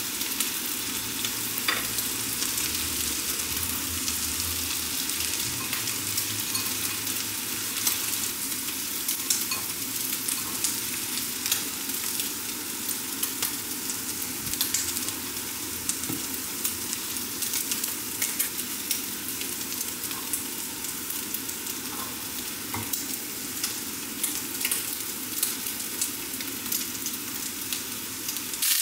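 Food frying in a pan: a steady sizzle with many scattered crackles.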